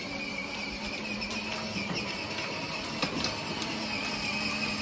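Electric motor of a child's battery-powered ride-on toy motorcycle running with a steady whine, its plastic wheels rolling over concrete with scattered clicks and rattles.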